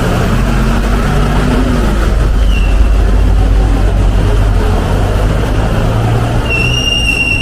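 Road traffic passing close by: vehicle engines running with a heavy low rumble. About a second before the end a steady high-pitched tone begins.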